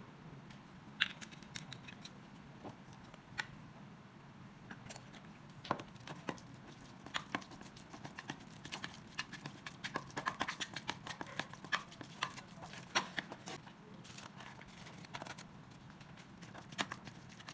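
Irregular taps and clicks of hands preparing food with kitchen utensils and containers, busiest in the middle.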